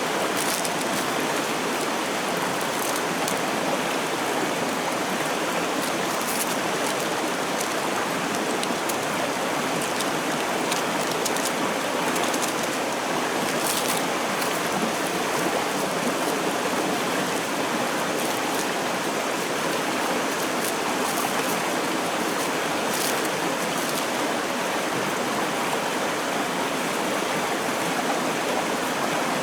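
Steady rushing of a clear, shallow river flowing over stones, with a few faint ticks.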